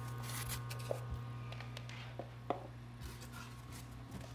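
Eggs being handled in an egg tray: a few light clicks and taps, the sharpest about two and a half seconds in, over a steady low hum.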